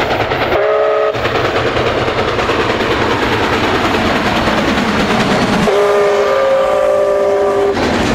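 Steam whistle of Canadian Pacific 4-6-4 Hudson steam locomotive 2816 sounding a chord of several tones: a short blast about half a second in, then a long blast of about two seconds beginning about five and a half seconds in, over the steady noise of the train running past.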